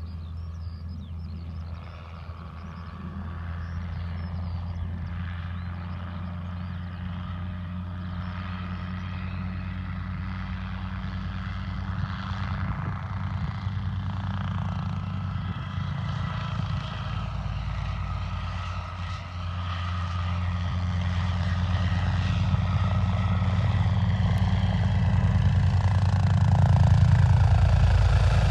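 Guimbal G2 Cabri helicopter in flight, its four-cylinder piston engine and rotor making a steady hum that grows louder as it approaches, with the rotor's fast regular beat coming through near the end.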